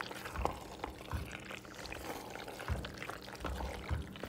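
Wooden spoon stirring penne in a thick, creamy cheese sauce in a pot: wet, sticky squelching with irregular soft knocks.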